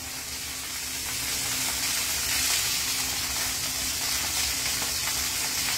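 Pieces of steak sizzling steadily in a hot frying pan, growing a little louder over the first two seconds.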